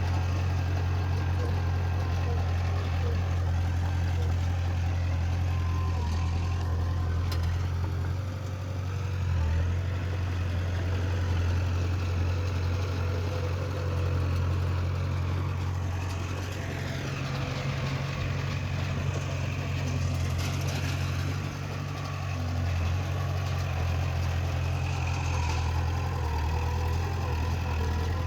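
Heavy diesel earthmoving machine's engine running with a steady deep drone, its note shifting briefly a little past the middle.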